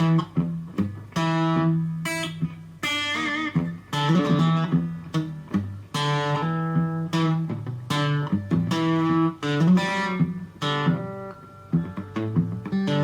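Electric guitar, a Fujigen (FGN) Stratocaster plugged straight into a Fender Studio Valve tube amp, played as picked single notes and chords that ring and decay, with a wavering vibrato note about three seconds in.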